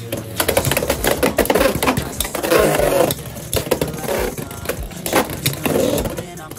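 Two Beyblade X spinning tops, one a Wizard Rod 9-60 Ball, clashing inside a plastic stadium: a rapid, irregular run of hard clacks and scrapes as they collide and rub against each other and the stadium.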